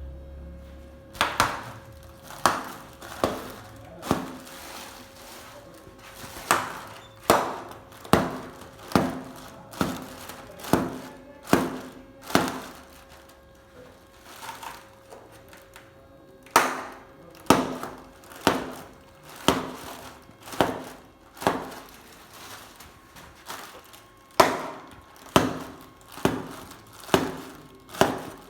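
Foil balloons popping one after another, sharp loud pops with a short ring after each, in four runs of about five to nine pops roughly two-thirds of a second apart.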